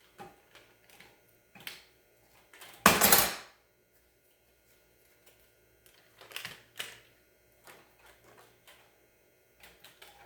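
Clicks and knocks of the Wicked Edge sharpener's stone paddles being handled while the stones are swapped for the 800 grit, with one louder clatter about three seconds in and a few more knocks a few seconds later.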